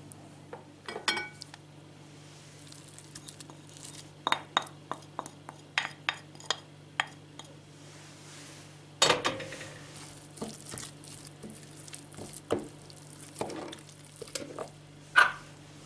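Spoon clinking and scraping against a bowl while ground lemon and garlic are combined with honey: irregular light clicks and knocks, with a louder knock about nine seconds in and another near the end.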